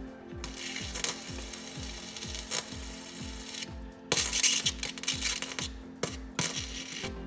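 Harbor Freight Titanium welder's arc running in several bursts with short breaks, the longest about four seconds in, as a nut is welded onto a rusted bolt head to free the bolt. Background music with a steady low beat plays under it.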